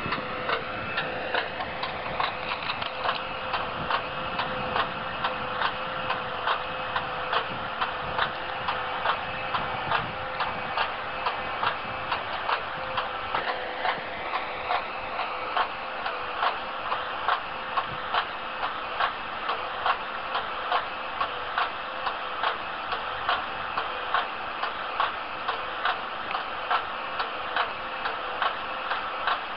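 Even mechanical ticking about one and a half times a second over a steady machine hum.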